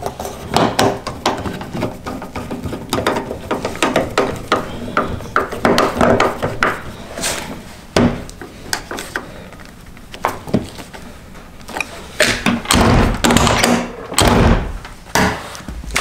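Screwdriver clicking and scraping on the door handle's mounting screw in the edge of a Mk2 Volkswagen door, with small metallic knocks. In the last few seconds come heavier thuds and clunks as the door is shut and the newly fitted handle and latch are tried.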